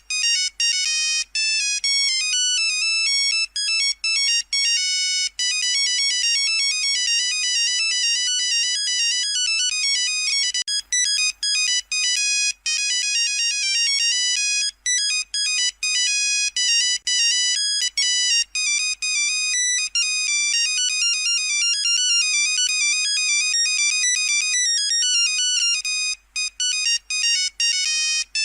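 Nokia 3310 ringtone playing: a fast melody of short, bright beeping notes in quick succession, with brief breaks between phrases.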